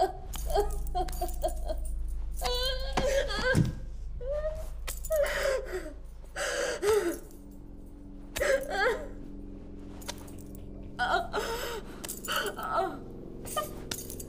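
Horror-style intro of human gasps, moans and cries that bend up and down, one sliding steeply down in pitch about three seconds in, over a steady low drone.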